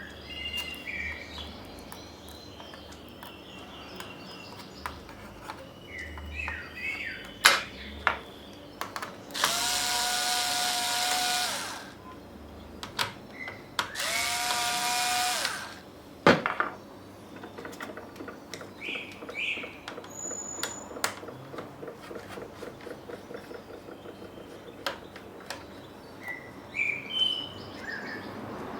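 Electric screwdriver running twice, about two seconds each, its motor whine spinning up and winding down as laptop screws are driven out, with small clicks and knocks of screws and plastic parts in between.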